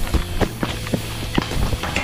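Background music with irregular quick knocks and clicks over it, like a player's footsteps running across the ground.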